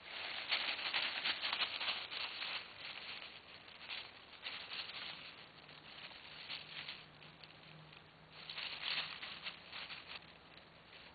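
Dry fallen leaves rustling and crackling under a beagle puppy as it noses and walks through them, loudest in the first two seconds and again around eight to ten seconds in.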